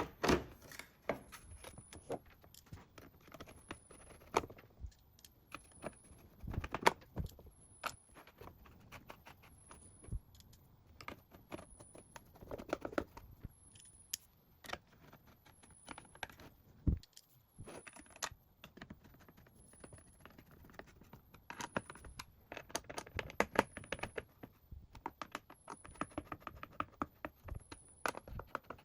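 Hard plastic parts being handled and fitted: a 3D-printed cupholder bracket and dashboard trim pieces knocking, clicking and tapping irregularly, with a few sharper knocks and busier runs of small clicks.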